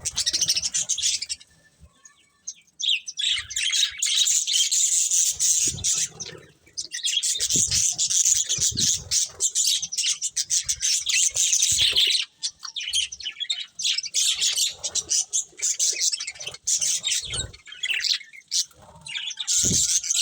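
Several budgerigars chattering and chirping in rapid, dense runs, with a short lull about two seconds in, and now and then a soft low thump.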